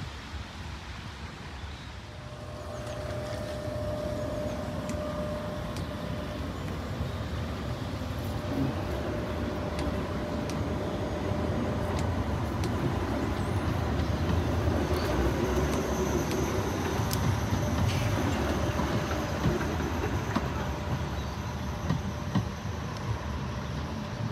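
Sheffield Supertram tram running on rails: a steady low rumble with a faint electric whine over it, growing louder a couple of seconds in, with a few light clicks.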